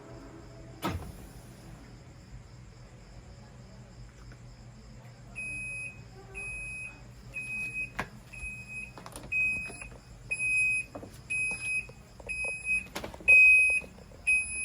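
Washing machine control-panel beeper giving a string of short, high electronic beeps, one after another, starting about five seconds in, with a few clicks in between.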